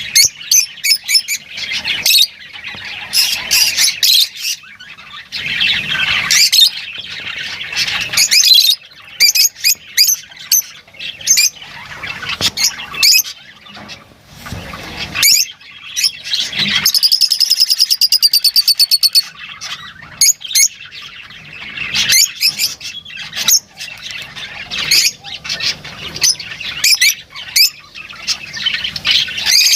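Lovebirds chattering with dense, shrill chirps and squawks, and a rapid rattling trill for about two seconds past the middle.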